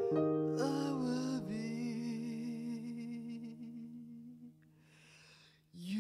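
Digital piano chord struck and left to ring under one long sung note with vibrato, both fading away about five seconds in; a new piano chord is struck near the end.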